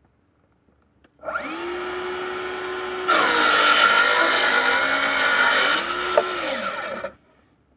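Festool HKC 55 EB cordless track saw spinning up about a second in, then cutting through a board, louder and harsher for about three seconds while the blade is in the wood. It then runs free briefly and winds down, the pitch falling until it stops.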